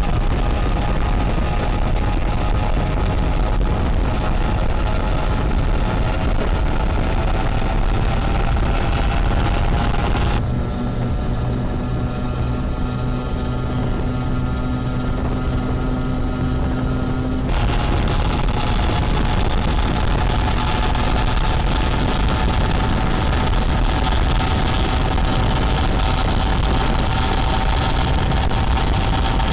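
A motorboat engine drones steadily while water rushes past a tube being towed at speed, with the engine's pitch creeping slowly upward. From about ten to seventeen seconds in, the sound drops and turns duller, leaving a steady low hum, then the full rush returns.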